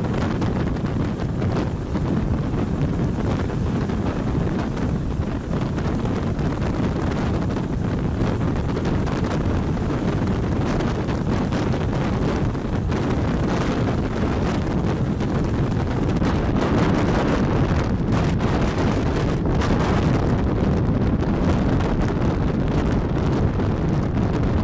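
Wind buffeting the microphone held out of the open window of a Class 121 'bubble car' diesel railcar at speed, over the train's running noise, growing a little louder about two-thirds of the way through.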